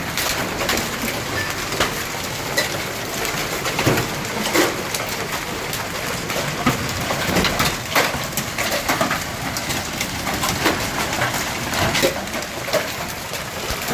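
Heavy hailstorm: a steady hiss of falling hail, broken by many sharp, irregular cracks of larger hailstones hitting the ground.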